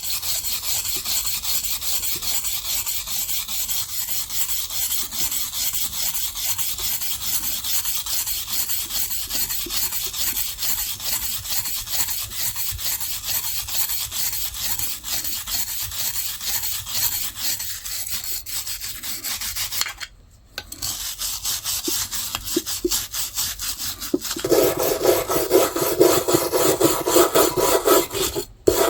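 Steel wire brush scrubbing the rusty steel blades of old hand shears in rapid, even strokes, stripping loose surface rust. It stops briefly about two-thirds of the way through, then comes back louder and harsher near the end.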